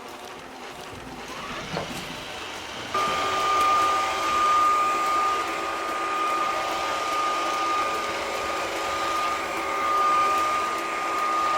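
Robot vacuum cleaner running and sucking up spilled pea flakes: a steady motor hum with a high whine that gets abruptly louder about three seconds in.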